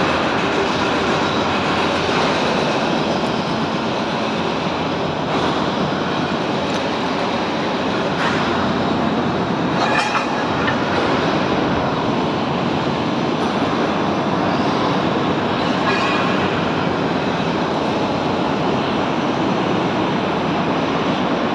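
A train running through the station: a steady rumble, with a few faint clicks and squeaks, the clearest about ten seconds in.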